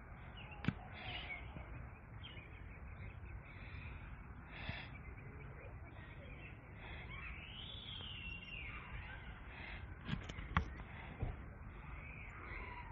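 Outdoor ambience with low wind rumble on the microphone and faint bird chirps. There is a sharp click under a second in, and a few more clicks about ten to eleven seconds in.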